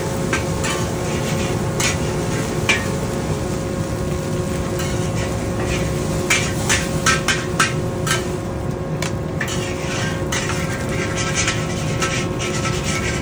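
Metal wok spatula scraping and clanking against a carbon-steel wok while egg is stirred, with a run of sharp clanks about six to eight seconds in and again near the end. A steady roar with a faint hum runs underneath.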